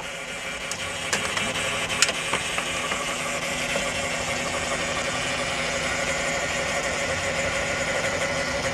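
2014 Chrysler Town & Country idling with a steady, loud whine from its automatic transmission, which the mechanic puts down to the transmission pump and an internal failure. A few light clicks about one and two seconds in as the fluid cap is handled.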